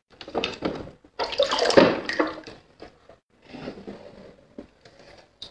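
Water splashing and sloshing in a sink as plastic toy trucks are pushed through it, with sharp knocks and scrapes of the plastic against the basin, in uneven spurts that are loudest about a second in.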